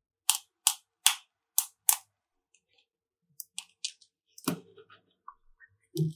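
A quick run of five sharp clicks in about two seconds, then fainter scattered clicks and two duller knocks from objects being handled.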